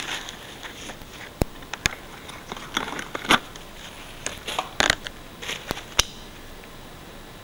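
Handling noise from a small plastic object: a scattered string of sharp clicks and short crinkling rustles, with no motor running.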